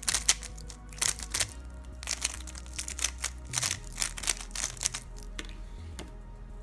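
Valk 3 Elite M 3x3 magnetic speedcube being turned fast, a run of quick plastic clicks and clacks that comes in bursts and thins out near the end, over quiet background music.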